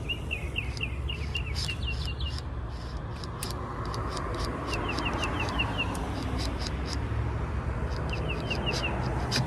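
A bird chirping in three quick runs of short, falling notes, about six a second, over a steady low rumble, with a few faint clicks.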